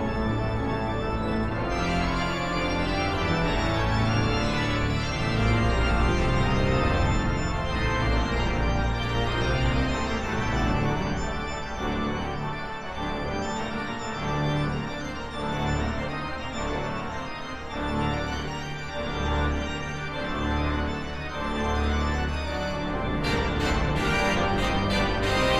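Background music led by sustained organ chords; a quick, high ticking percussion comes in near the end.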